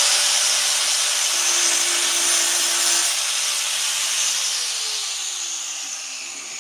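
A small angle grinder running at full speed and cutting through glass mosaic tile with a loud high-pitched hiss. About three seconds in the cutting stops, and the grinder is switched off and spins down with a falling whine.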